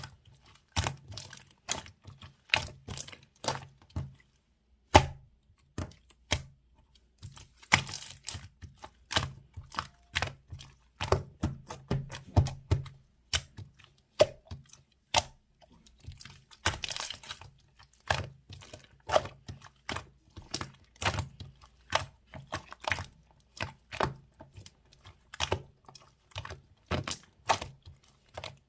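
Slime being squeezed and pressed by hand, giving irregular sticky clicks and pops, several a second, with a brief pause about four seconds in.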